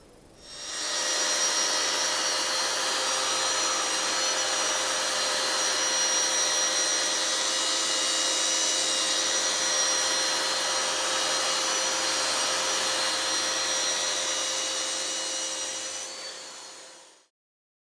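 Electric power sander running steadily while sanding dried filler on a wall, a constant motor whine over a rushing hiss. It starts about half a second in and fades out near the end.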